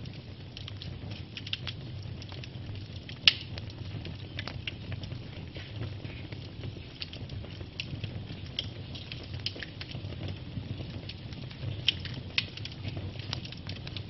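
Wood fire of burning logs crackling, with frequent small snaps over a low steady rumble. One sharp loud pop about three seconds in, and two more close together near the end.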